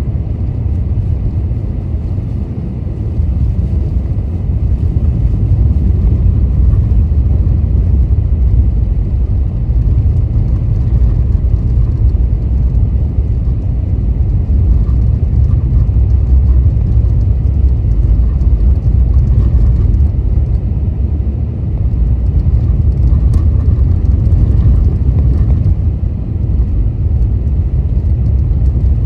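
Car driving: a steady low rumble of road and engine noise that swells and eases a little in level.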